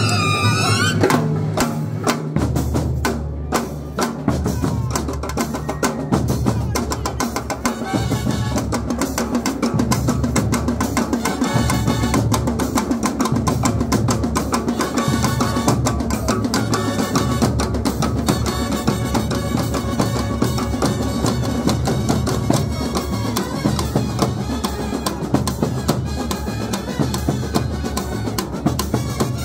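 Kerala bandset (street brass band) playing: fast, dense drumming on bass drum and side drums with clashing cymbals, and brass horns sounding over the beat at times.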